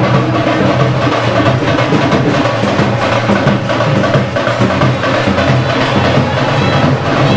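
Dhak drums and other instruments playing together, with dense, rapid drumming over sustained low tones.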